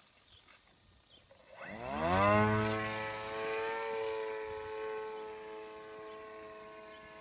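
Electric motor of a foam-board Versa Wing flying wing, turning a 10x4.5 propeller, spooling up to full throttle at hand launch. A buzzing whine rises sharply in pitch about a second and a half in, then holds a steady note and slowly fades as the plane flies away.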